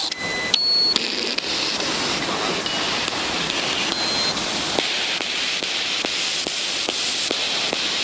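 Steady rush of a waterfall. Several short electronic beeps at different pitches sound in the first half, and light regular clicks, about three a second, run through the second half.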